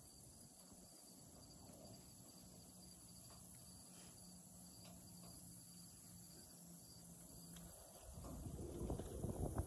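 Faint insect chirping, a thin pulsing trill that goes on steadily. About eight seconds in, a louder rustling noise comes in and grows.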